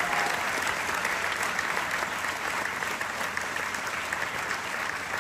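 Audience applauding, a dense patter of clapping that slowly dies down.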